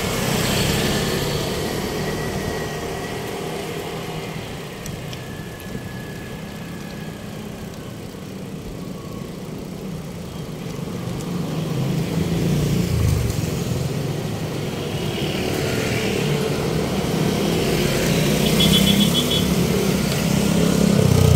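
Road traffic: motor vehicle engines running and passing, the sound growing louder about halfway through and again near the end.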